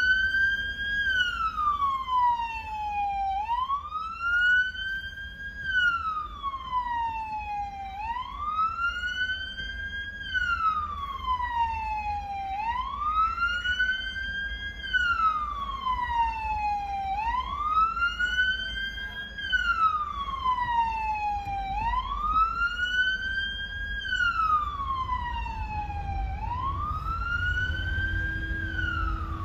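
Garda (Irish police) vehicle siren sounding a wail. Each cycle rises quickly in pitch over about a second, then falls slowly, repeating about every four and a half seconds. A low rumble of traffic runs underneath.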